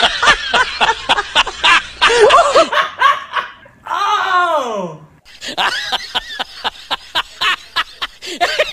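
People laughing and chattering, with one long voice sliding down in pitch about four seconds in.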